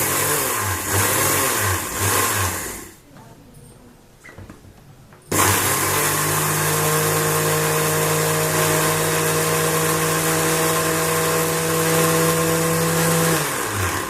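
Electric mixer grinder grinding roasted coriander seeds into powder, its motor pitch wavering under the load of the seeds. It stops after about three seconds, starts again about two seconds later and runs steadily, then cuts off near the end.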